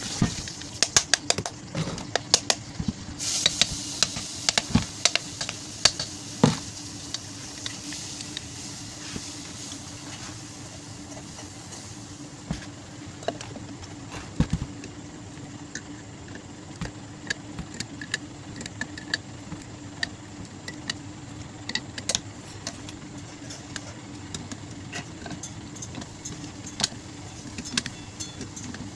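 Metal tools tapping and clicking against a stand fan's motor housing as it is worked apart or reassembled. A quick run of sharp taps in the first several seconds gives way to scattered clicks, over a steady low hum.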